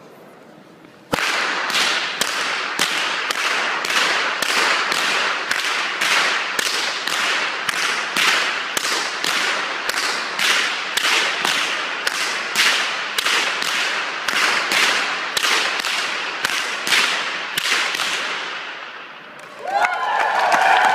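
Two long Aperschnalzen whips cracked overhead by two men in turn: a steady rhythm of about two sharp cracks a second, each one echoing in the hall. The cracking stops after about 18 seconds, and applause and cheering break out near the end.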